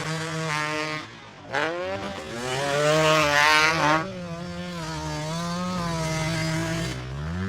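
KTM 250 two-stroke dirt bike engine being ridden, its pitch rising and falling with the throttle. The throttle shuts off briefly about a second in, then the revs climb again, drop back around four seconds in and hold a steadier pitch.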